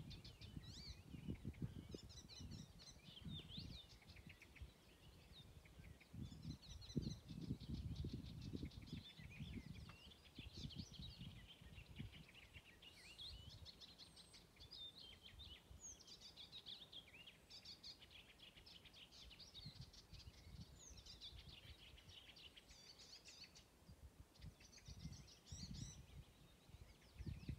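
Icterine warbler singing: a long, varied song of fast repeated notes and chattering phrases that runs on without pause, over low gusts of wind noise on the microphone.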